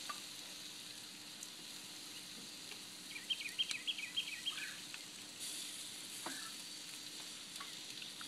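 Barbecue-sauced pork chops sizzling on a grill, a steady hiss. About three seconds in, a songbird sings a quick phrase of short repeated chirps.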